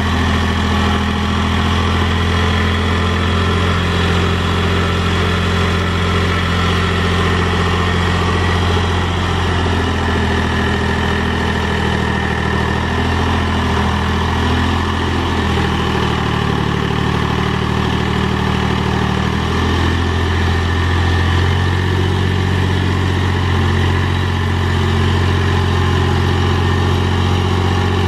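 Mahindra tractor's diesel engine running at a steady working speed while pulling a box blade through dirt, its pitch shifting slightly now and then.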